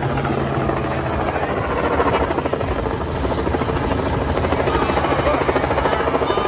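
Helicopter rotor blades chopping in a rapid, steady beat, loud and continuous over the turbine's drone.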